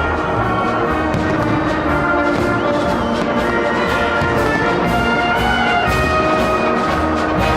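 Orchestral music with brass playing steadily, over a regular beat.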